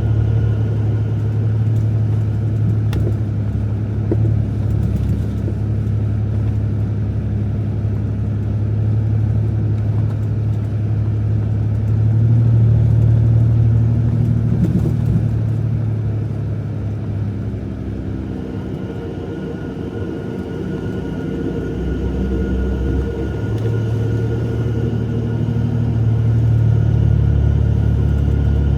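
Jeep Gladiator's 3.0 EcoDiesel V6 running under way, a steady low drone with road noise that swells, eases off and builds again.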